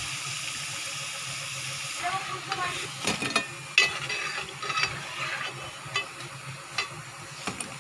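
Hot oil sizzling as deep-fried soya chaap pieces are scooped out with a steel spoon. From about two seconds in, scattered metal knocks and clinks of the spoon against the steel pot and bowl ring out over the fading sizzle.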